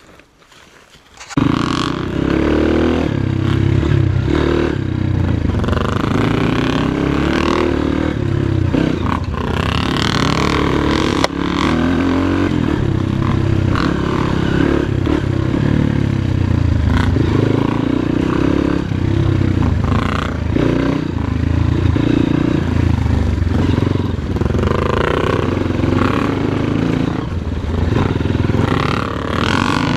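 Dirt bike engine revving hard as it climbs, its pitch rising and falling over and over. It starts abruptly about a second and a half in, with a sharp knock about eleven seconds in.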